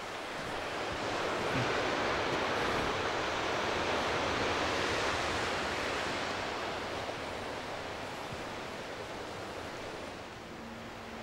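Sea surf rushing, swelling for a few seconds and then easing off.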